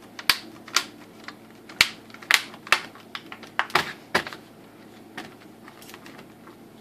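Plastic screen bezel of an ASUS X501A laptop being pressed back on, its clips snapping into place in a series of sharp clicks that thin out near the end.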